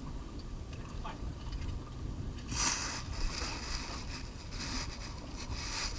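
Wind buffeting the microphone over choppy sea water around a small boat, with a low rumble throughout and a louder rush of hiss about two and a half seconds in.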